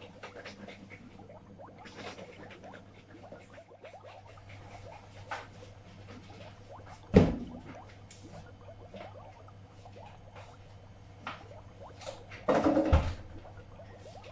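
Kitchen counter handling while making coffee: small clinks and scrapes of a teaspoon against a cup, a sharp knock about seven seconds in, and a louder clatter near the end.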